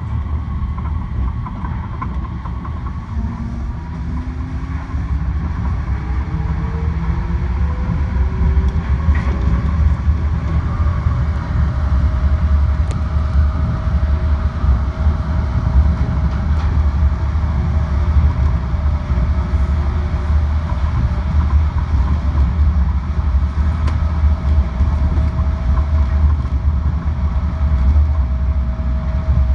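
A rubber-tyred automated guideway train (Busan Metro Line 4 people mover) running on its concrete guideway, heard from inside the car: a steady low rumble of tyres and running gear. An electric motor whine rises in pitch over the first several seconds, then holds steady.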